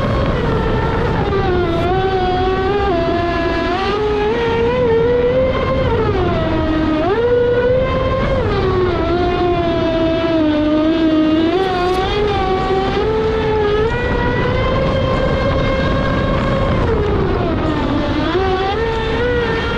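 Traxxas Spartan 6S RC speed boat running, its brushless electric motor whining and rising and falling in pitch as the throttle is worked, over the rush of the hull through the water.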